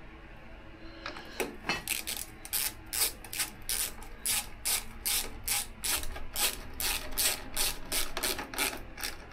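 Hand ratchet clicking in a quick, even run of strokes, starting about a second in, as a fastener is turned during reassembly.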